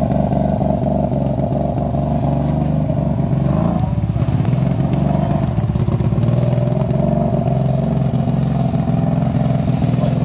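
ATV engine running steadily, its pitch dipping slightly about four seconds in and then holding.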